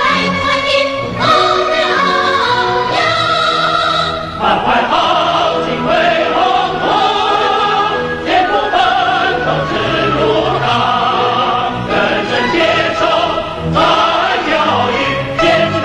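Soundtrack music with a choir singing a melody over instrumental accompaniment.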